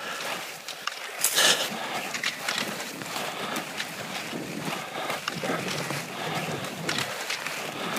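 Cross-country skate skis swishing and scraping over groomed snow, with short clicks of pole plants and a louder rush about a second and a half in.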